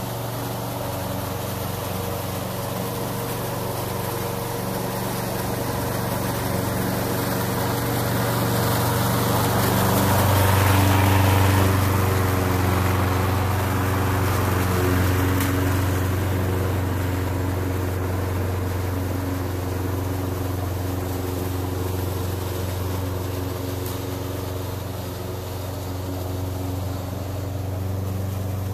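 Toro Super Recycler push mower's engine running steadily under load while cutting tall grass. It grows loudest about eleven seconds in as the mower passes close by, where its pitch shifts, then fades slightly as it moves away.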